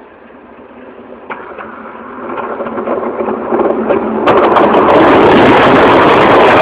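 A train approaching, its rumble growing steadily louder with a few sharp clicks, until it is passing close and at full loudness from about four seconds in.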